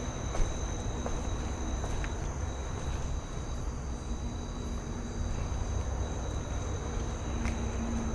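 Crickets trilling steadily in two unbroken high-pitched tones over a low background rumble, with a single knock about half a second in.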